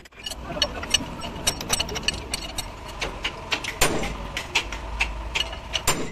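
Ratchet wrench clicking in quick, uneven runs as bolts on a truck's front wheel spindle are turned, with occasional sharper metal clinks.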